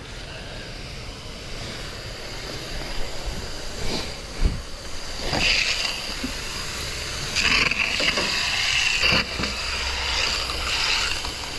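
Water from a hose spraying onto an air conditioner's dirty outdoor condenser coil, a hissing spray that comes in several louder surges over the second half, with a couple of short knocks before them.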